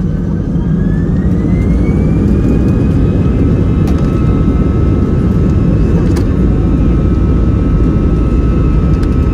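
Airbus A320-214's CFM56 turbofan engines spooling up for takeoff, heard inside the cabin: a whine rises in pitch over the first couple of seconds and then holds steady over a loud rumble. There are a couple of light clicks.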